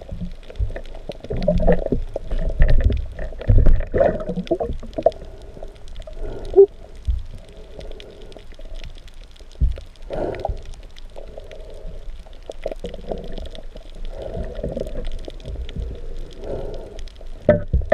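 Muffled underwater sound through a GoPro camera's waterproof housing: water swirling and gurgling, with dull knocks from a speared bluefin trevally being handled on the spear. The knocks are heaviest in the first few seconds, again about ten seconds in, and near the end.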